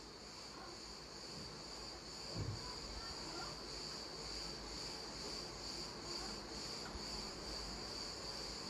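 Steady high-pitched chirring of insects, with a single dull low thump about two and a half seconds in.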